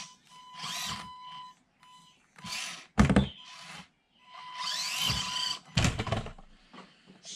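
Axial SCX24 1/24-scale RC crawler's small electric motor and gears whining in short spurts as the stock truck tries and fails to climb a steep 52-degree ramp, with two loud thumps about three and six seconds in.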